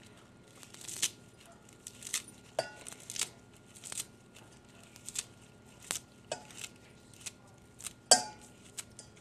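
Fresh cilantro being pinched, torn and dropped onto shredded cabbage in a stainless steel bowl: short, irregular crisp rustles and snaps, with one sharper knock against the bowl about eight seconds in.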